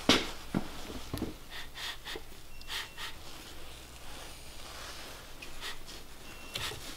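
Hands handling the bottom end of a Honda B18 engine block: a sharp knock right at the start, then scattered light clicks and rubs of fingers and skin on the rod caps and metal, in a small room.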